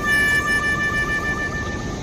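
A high, pitched tone held for about two seconds with a slight wobble, ending abruptly, after a few short notes stepping down in pitch. Beneath it is the steady rush of Purwa waterfall.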